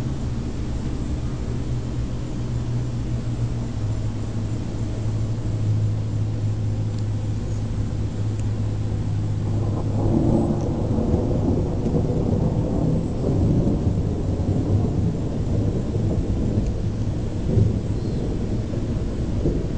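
Thunder rumbling low and long, swelling and growing fuller about halfway through, over a steady low hum.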